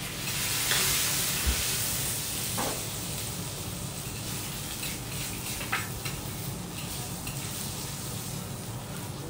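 Beef sinew pieces sizzling on a hot teppanyaki steel griddle as they are fried crisp, the hiss swelling strongly about a second in and then settling to a steady sizzle. A few sharp clicks and a low knock of spatulas and bowls on the counter sound over it.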